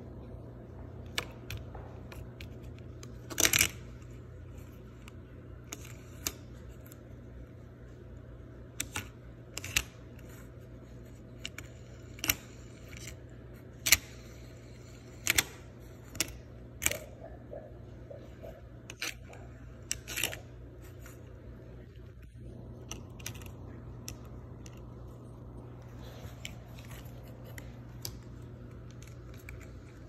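Silicone bubbles of a three-bubble pop-it fidget spinner being pressed with a fingertip, giving irregular sharp pops about one every second or two, with a longer pause about two-thirds of the way through. A steady low hum runs underneath.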